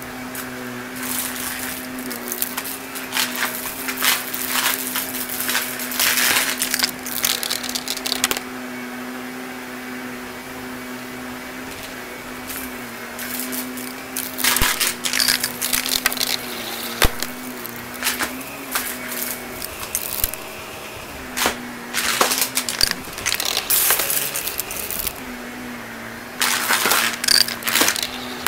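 A Shark Navigator XL upright vacuum runs with a steady motor hum. Small debris rattles and clicks up through the nozzle in several stretches, the longest over the first several seconds.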